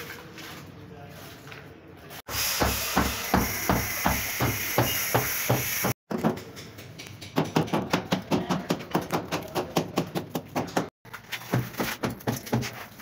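Quick repeated taps and scrapes of a trowel working tile adhesive onto a bare wall, about three or four strokes a second.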